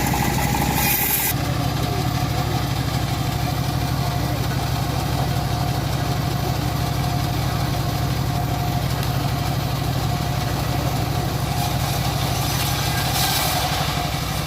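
Band sawmill running with a steady, even drone. A high hiss over it stops about a second in and comes back briefly near the end.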